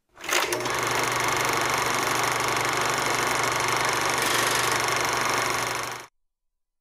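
Film projector sound effect: a steady mechanical whirring run with a constant low hum. It starts with a click and cuts off abruptly after about six seconds.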